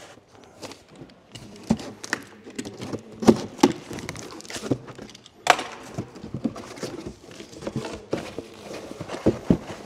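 Packaging being handled as a boxed motorcycle windscreen is unpacked: irregular knocks and thunks on cardboard with rustling of plastic wrap, and a louder rustle about five and a half seconds in.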